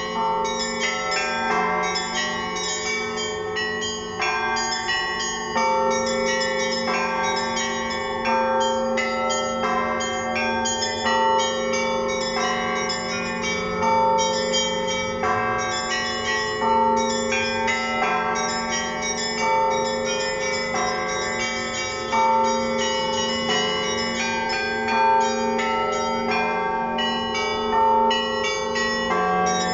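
Russian Orthodox church bells rung by a bell ringer as a zvon: small bells chime in quick repeating patterns over the steady hum of the larger bells, with louder strokes every few seconds.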